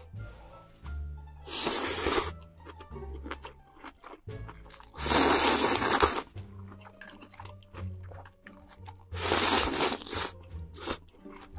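Close-miked eating: three loud slurps of noodles and broth from a spoon, about four seconds apart, with small chewing clicks in between, over background music.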